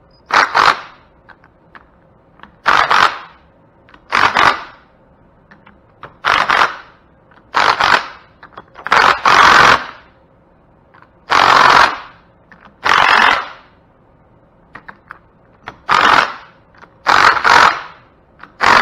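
Cordless impact wrench hammering down the cover bolts of a hydrostatic transmission, in about a dozen short bursts of under a second each with pauses between as it moves from bolt to bolt. It is bringing the bolts up to about 30 foot-pounds.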